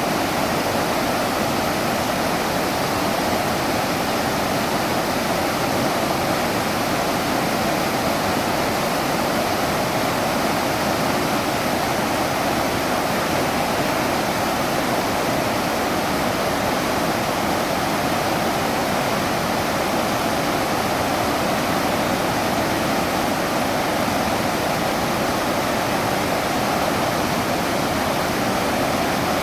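Steady, even rush of flowing river water, a constant wash of noise with no breaks or changes.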